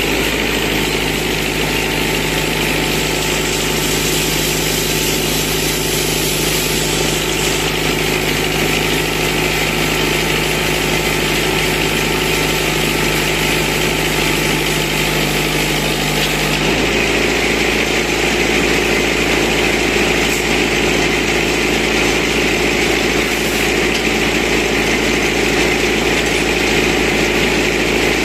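Tractor-driven portable band sawmill cutting a log: the tractor engine runs steadily while the freshly fitted band blade saws through the wood. The tone shifts abruptly about two-thirds of the way through.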